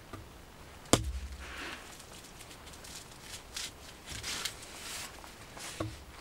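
A freshly shot goose being dressed by hand: one sharp chop about a second in, then several short bursts of rustling and tearing.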